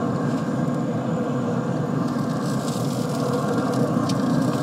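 Steady hum of a Pit Boss pellet smoker's fan running with the lid open at high heat, with one light click near the end.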